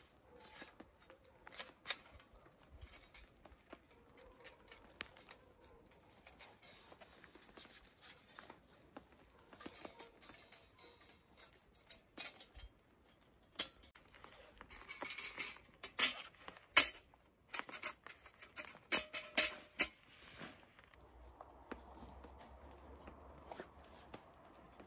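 Thin metal panels of a folding kindling stove clicking, clinking and scraping as they are handled and slotted together, in scattered sharp knocks with the densest, loudest clatter in the middle. Soft rustling near the end.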